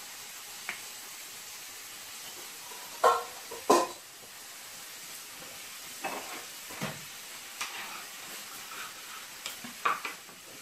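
Metal kitchenware knocking against a metal baking tray: two sharp ringing knocks about three seconds in, then lighter clinks and taps. Under them runs a steady low sizzling hiss.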